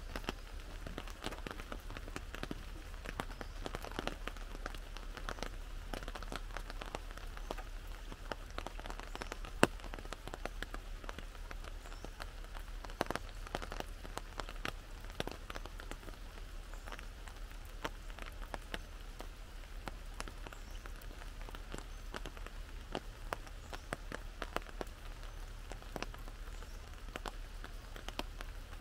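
Rain falling on an umbrella overhead: a steady hiss with many scattered drops ticking sharply on the fabric, one much louder drop near the ten-second mark.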